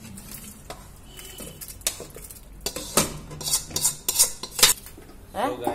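Metal ladle scraping and knocking against a metal kadhai as curry is tipped out into a pressure cooker: a run of sharp clinks and scrapes, thickest in the second half.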